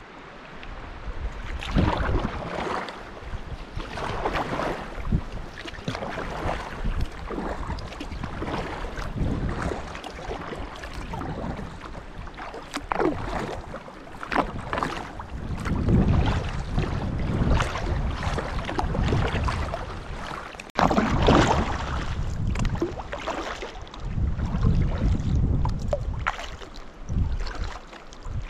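Kayak paddle strokes in the water: repeated splashes and drips about every one to two seconds, with wind rumbling on the microphone.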